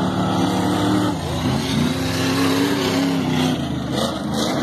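Off-road race trucks' engines revving hard as they race past on a dirt course. The pitch climbs a little under two seconds in, holds, then drops near the end.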